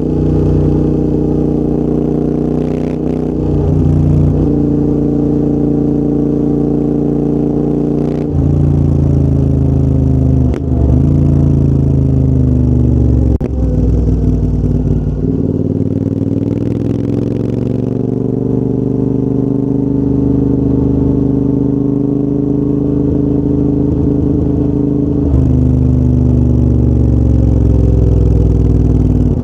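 Royal Enfield Interceptor 650's parallel-twin engine running through a full TEC exhaust system while riding. The note breaks briefly several times, and about halfway through the revs fall, then climb again.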